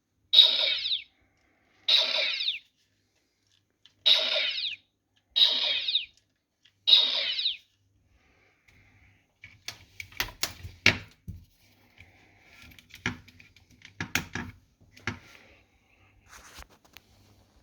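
Electronic blaster shot sounds from a Cylon pistol prop's built-in sound module, fired five times in the first half, each a short bright zap sliding down in pitch. In the second half come scattered clicks and knocks of the prop being handled.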